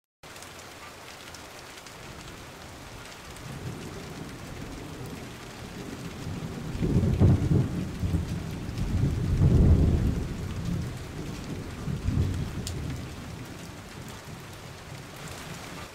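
Heavy rain falling steadily as a constant hiss. A long, deep roll of thunder builds a few seconds in, is loudest around the middle with two swells, and dies away near the end.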